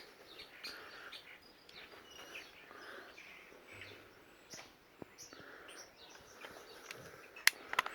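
Faint bird chirps in the background, then near the end a single sharp crack: the CO2 Beretta 90two airsoft pistol firing a steel BB.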